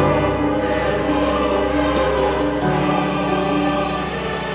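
Slow, solemn choral music: voices holding long chords that change every second or two.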